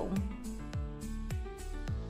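Background music with a steady beat: a deep thump about every 0.6 s over sustained tones, with light ticks between the beats.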